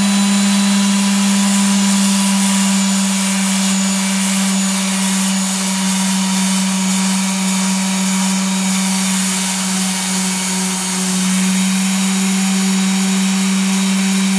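Electric detail sander with 200-grit paper running against a painted canvas: a constant motor hum with a rough sanding hiss over it.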